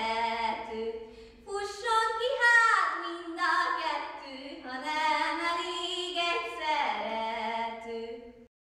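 A girl's solo voice singing a Hungarian folk ballad unaccompanied, in slow melodic phrases with short breaths between them. The voice cuts off suddenly near the end.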